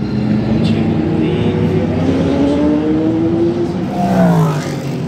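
Sports racing cars at full speed on the track, their engine notes climbing in pitch as they accelerate. About four seconds in, one car passes close and its note drops in pitch as it goes by.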